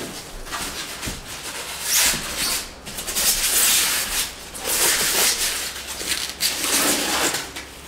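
Rustling and crinkling of the white protective wrapping as a turntable's dust cover is lifted out of its box and handled, in several bursts of about a second each.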